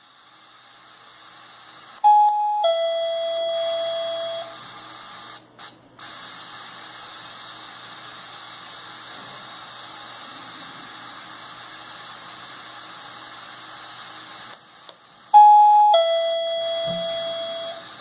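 SilverCrest wireless doorbell receiver chiming a two-note ding-dong, a short high note then a longer, fading lower note, twice, about thirteen seconds apart, set off by its 433 MHz push button. A steady hiss runs underneath.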